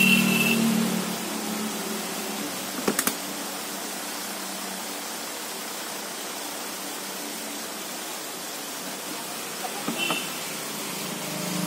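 Steady workshop background hiss with a few light clicks, a triple click about three seconds in and more about ten seconds in. A short high beep sounds at the start and again near the end.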